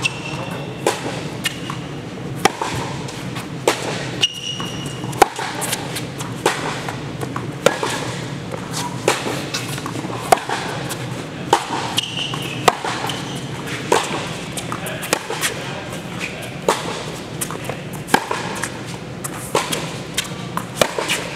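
Tennis rally on an indoor hard court: repeated sharp racket strikes on the ball and ball bounces, echoing in the large domed hall, with a few short squeaks of sneakers on the court.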